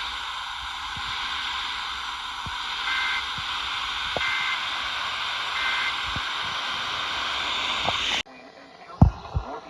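Heavy radio static hiss, with three short, faint two-tone data bleeps about 1.3 s apart buried in it: an EAS SAME header being sent. Near the end the static cuts off abruptly, and a couple of low thumps follow.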